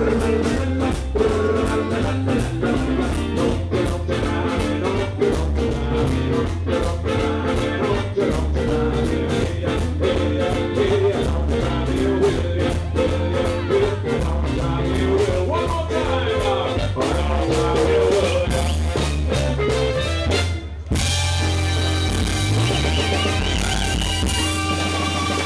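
Upbeat instrumental music with a fast, steady beat and bass line. About 21 seconds in the beat stops and held chords ring on.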